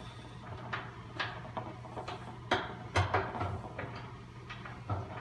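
Scattered light clicks and knocks at irregular intervals, a few every second or two, as bolts and nuts are worked into place on the honey extractor's top bar and the mounting bracket of its electric drive unit.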